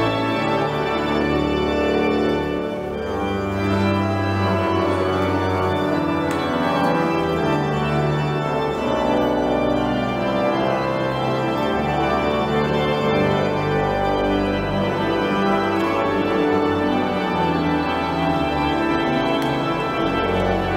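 Organ playing slow, sustained chords over held bass notes that change every couple of seconds.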